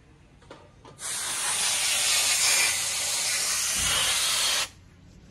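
Handheld spray gun hissing in one continuous blast of about three and a half seconds, starting and cutting off abruptly, as it cleans dirt out of an automatic transmission's valve body.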